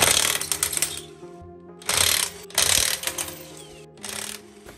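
Cordless impact wrench hammering on a car's wheel lug nuts, loosening them. It goes in bursts: one about a second long at the start, then three shorter ones. Background music plays underneath.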